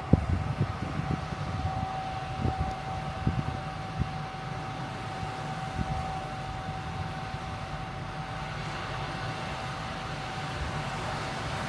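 Steady hum of a large car ferry's machinery, with a thin steady whine setting in about a second and a half in. Wind buffets the microphone in gusts during the first few seconds.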